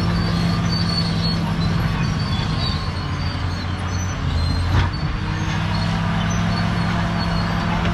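Caterpillar D7G bulldozer's diesel engine running steadily under work, easing off briefly around the middle, with one sharp metallic knock about five seconds in.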